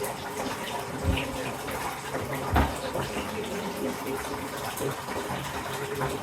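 Bath tap running into a tub: a steady rush of water. Two short low thumps cut through it, about a second and about two and a half seconds in.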